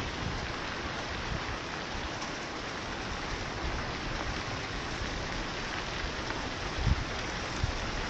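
Thin waterfall spraying and splashing down a rock face: a steady rush of falling water, with a couple of brief low thumps near the end.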